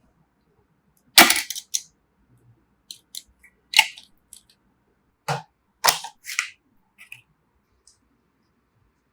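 A run of sharp clicks and knocks from hard objects being handled: five loud ones, with small ticks between them.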